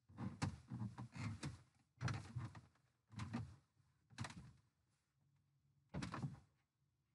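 Bumps, knocks and rustles of someone moving about in a sailboat's cockpit, in about five short separate bouts.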